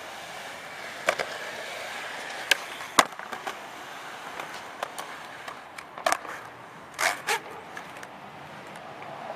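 Skateboard wheels rolling on rough concrete, broken by several sharp clacks of the board's tail popping and the deck slapping the ground. The loudest clack comes about three seconds in, and a quick pair of clacks comes near the end.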